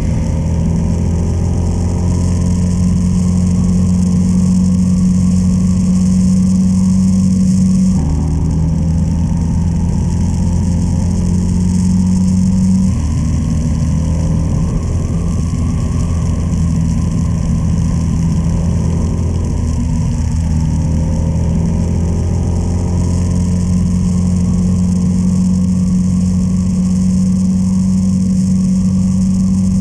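A 1996 Honda Transalp's V-twin engine running steadily at cruising speed, with a light hiss of wind. The engine note shifts about 8 and 13 seconds in.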